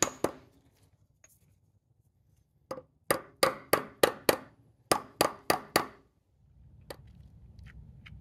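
Hammer blows on a 36 mm socket, driving the new front main seal into a Porsche 944 oil pump housing: two sharp metallic knocks at the start, a pause, then a quick run of about a dozen knocks, ending about six seconds in. A faint steady hum follows.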